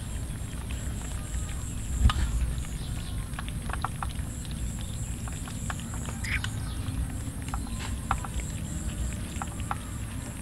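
A group of cats eating rice from a metal tray: many small, irregular chewing and lapping clicks over a steady low rumble, with one louder thump about two seconds in.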